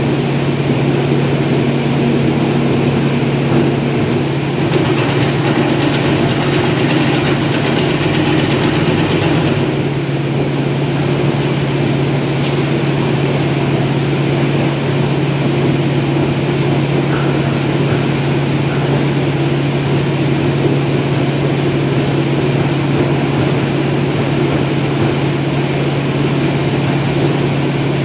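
A machine running steadily with a constant low hum.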